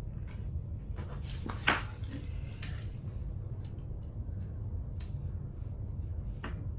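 A few scattered small metal clicks and taps of an Allen wrench working the bolts of a motorcycle gear shift lever, the sharpest click about a second and a half in, over a steady low hum.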